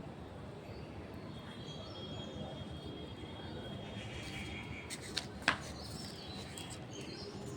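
Faint bird chirps over steady outdoor background noise, with two sharp clicks about five seconds in, the second the louder.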